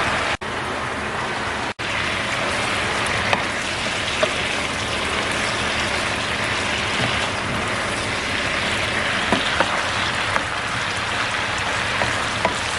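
Chicken adobo sizzling steadily in the pan as its soy sauce and vinegar sauce cooks down and thickens, with scattered small pops. Two very short breaks in the sound come near the start.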